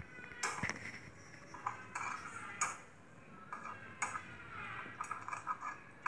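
Metal spatula scraping and clinking against a kadai in short, irregular strokes while onion, garlic and ginger paste fries in oil.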